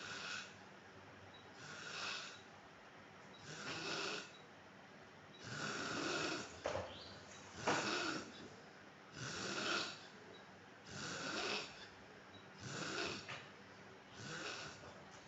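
A man snoring in his sleep, one snore about every two seconds.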